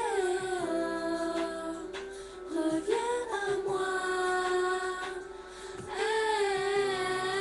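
Music between the song's verses: a slow melody of long held notes that slide from one pitch to the next, with no words sung.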